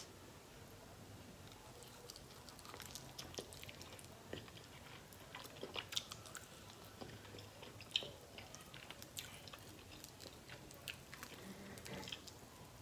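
Close-miked chewing and biting of a buffalo chicken wing: quiet mouth clicks and small crunches scattered throughout, with the sharpest one about eight seconds in.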